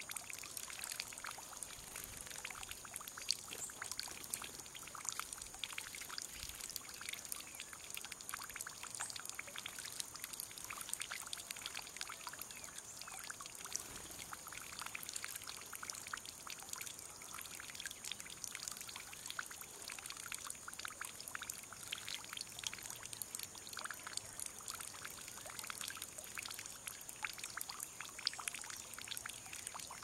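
Water pouring steadily from a spout into a full metal basin, trickling and splashing without a break as the basin overflows.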